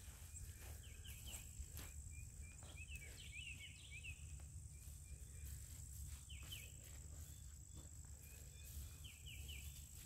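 Faint outdoor ambience: a steady high insect drone, with small bird chirps in short quick groups now and then. Soft rustling of hands digging through rotted straw compost.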